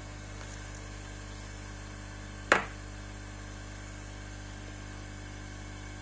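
Steady low electrical hum with a faint hiss, broken once about two and a half seconds in by a single sharp click.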